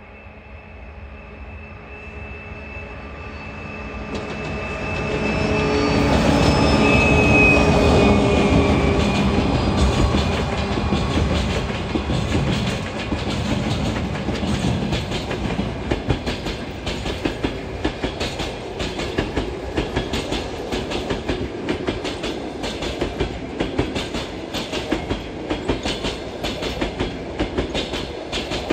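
2TE116 two-section diesel locomotive, with its 16-cylinder diesels running, approaching and passing close by, loudest about six to ten seconds in. Its coaches and flatcars then roll past with a steady clickety-clack of wheels over the rail joints.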